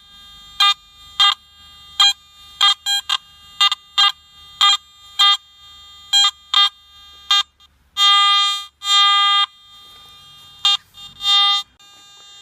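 Garrett metal detector sounding its target tone over a buried find as the coil is swept back and forth: short beeps of one pitch, about two a second, then two longer held tones a little past the middle, then a few more beeps. The detector is set with its sensitivity too high.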